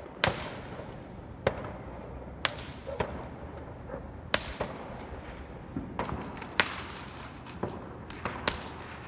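Fireworks going off: a series of sharp bangs, roughly one a second, each trailing off in a short echo. Clusters of quicker crackles come about six and eight seconds in.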